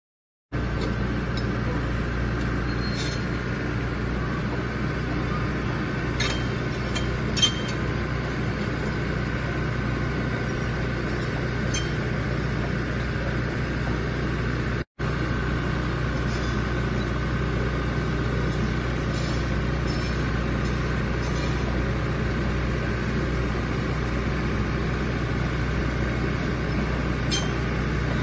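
Crawler bulldozer's diesel engine running at a steady speed, with a few light metallic clinks and one sharper clink about seven seconds in.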